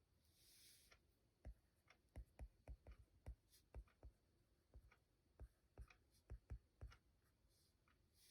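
Faint, irregular taps and clicks of a stylus tip, an Apple Pencil writing on an iPad fitted with a paper-texture screen film, with a brief scratchy hiss about half a second in.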